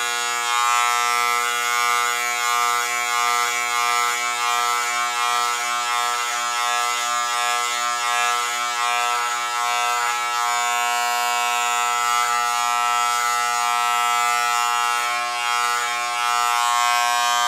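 Corded electric hair clippers buzzing steadily as they run through hair on the head, going back over patches missed in a self-cut.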